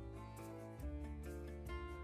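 Instrumental background music with a steady beat and held notes.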